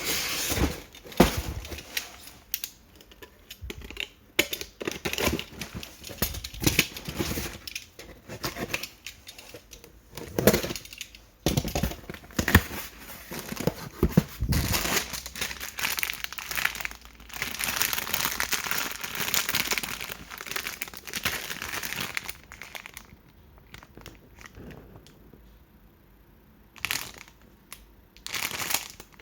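Plastic packaging crinkling and tearing as packs are handled and unboxed, in irregular bursts with scattered clicks, busiest around the middle and thinning to a few short rustles near the end.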